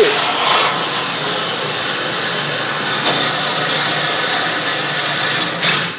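Motorized shooting-range target carrier running steadily as it brings the paper target in: a steady hiss over a low hum that stops abruptly near the end.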